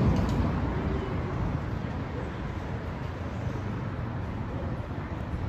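Road traffic noise, a steady low rumble. A louder passing vehicle fades away over the first couple of seconds.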